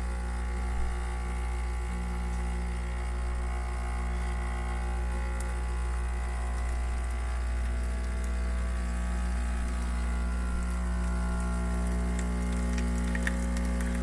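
Breville Dual Boiler's vibratory pump humming steadily while it pushes water through an espresso shot, its pressure being bled off to the drip tray to profile the shot. A few faint ticks come near the end.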